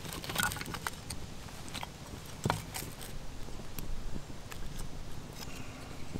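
Small kindling fire of split wood sticks crackling, with scattered sharp pops, the loudest about two and a half seconds in.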